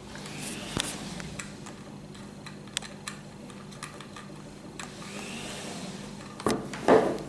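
Handling noise of the tracker unit and its antennas: scattered light clicks and rubbing of small plastic and metal parts, with a louder knock and scrape near the end, over a low steady hum.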